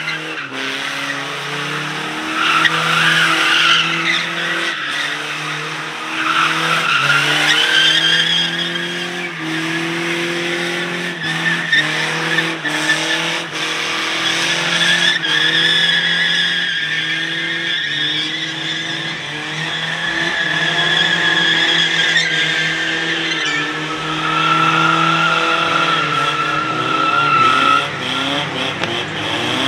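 Vehicle tires squealing continuously over a running engine, the squeal shifting in pitch.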